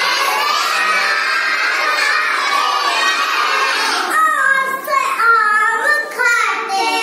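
A group of young children loudly chanting the Hindi alphabet (varnamala) together in a sing-song recitation. About four seconds in, the chant breaks into shorter phrases with brief pauses between them.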